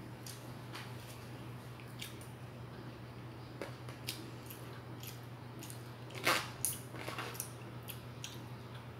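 Eating at a table: a metal fork and spoon clicking and scraping in a plastic food container, with mouth sounds of chewing, the loudest clicks a little past halfway. A steady low hum runs underneath.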